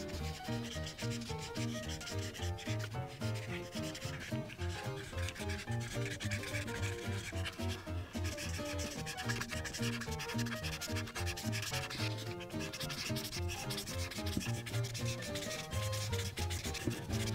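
Tip of a blue Prismacolor marker rubbing back and forth on paper in repeated strokes, filling in a large area of colour. A soft melody of quiet background music plays underneath.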